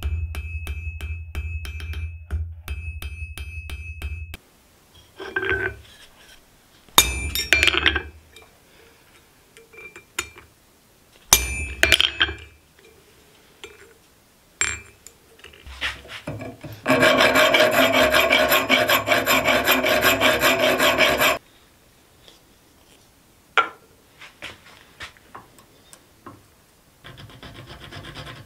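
Background music with a beat at first, then scattered knocks and scrapes as a small forged steel piece is handled. About halfway through comes a loud, even rasp of steel being worked for about four seconds, and a quieter rasp near the end.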